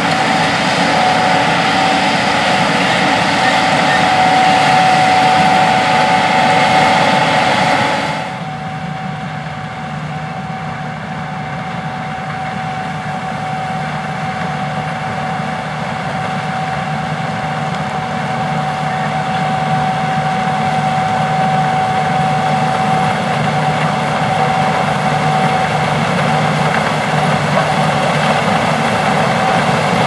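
Gleaner S68 combine, with its AGCO Power 8.4-litre six-cylinder engine, running while it harvests corn: a steady, loud machine drone with a steady whine over it. About eight seconds in the sound drops abruptly to a quieter, duller drone, which then carries on steadily.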